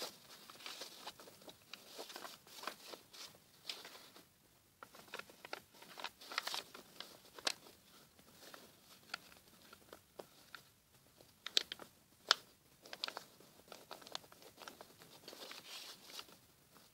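A sheet of printer paper being folded and creased by hand: irregular crinkles and rustles, with a few sharper crackles about eleven and twelve seconds in.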